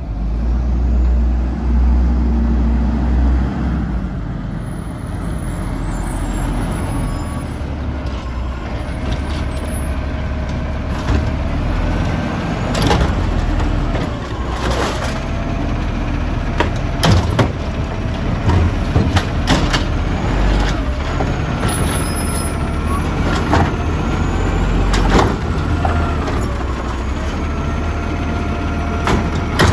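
Natural-gas automated side-loader garbage truck running at the curb while its hydraulic arm lifts and dumps recycling carts. The engine rumbles steadily, a hydraulic whine rises and falls, and from about halfway through there are repeated loud clanks of the cart and arm against the hopper.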